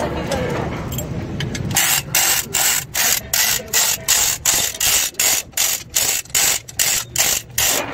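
Manual chain hoist being pulled hand over hand: its ratchet clicks sharply and evenly, about three to four times a second, starting about two seconds in.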